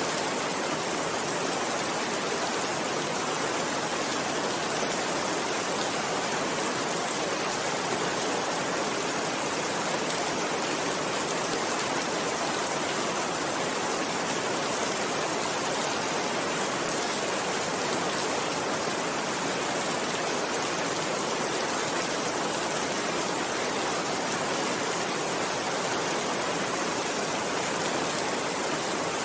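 Steady rainfall: a dense, even hiss of many drops with no single drops standing out, unchanging in level.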